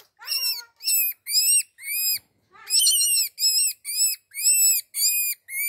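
A baby rabbit screaming: a run of short, high-pitched squeals, about two a second, each rising and then falling in pitch, with a brief pause about halfway through.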